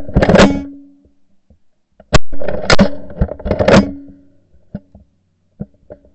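Shotgun shots at Canada geese flying overhead: one shot at the start, then three more in quick succession between about two and four seconds in, each trailing off in echo.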